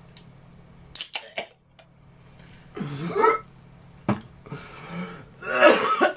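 A man coughing hard from the burn of a chilli-filled chocolate, with a short strained vocal sound about three seconds in and the loudest cough near the end. A couple of sharp clicks are also heard, about a second in and about four seconds in.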